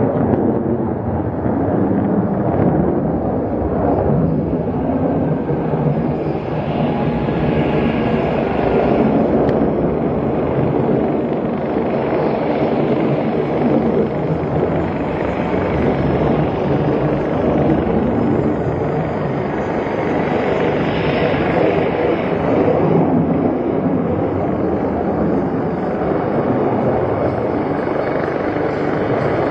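Jet fighter engine noise from an aircraft flying a display: a loud, steady rushing rumble that swells twice, about a third of the way in and again about two thirds in.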